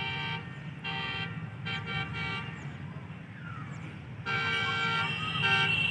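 Pakistan Railways ZCU-20 diesel locomotive's air horn sounding a rhythmic sequence of blasts: one cut off just after the start, another short blast, a quick run of short toots about two seconds in, then after a gap a longer blast from about four seconds in, broken by short toots near the end.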